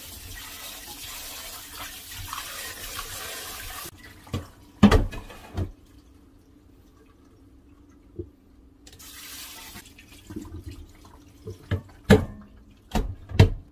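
Kitchen tap running into a stainless steel pot while parboiled chicken is rinsed, shut off about four seconds in. Sharp metallic clanks of the pot against the sink follow, with a second short run of water in between and a cluster of loud clanks near the end.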